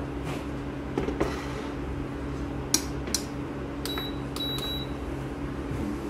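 A steady electrical hum with a few light clicks, and two short high electronic beeps about half a second apart a little past the middle.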